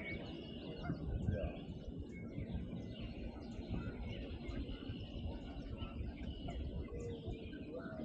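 A chorus of songbirds, several singing and calling at once, with short chirps and trilled phrases overlapping throughout. A steady low rumble runs underneath.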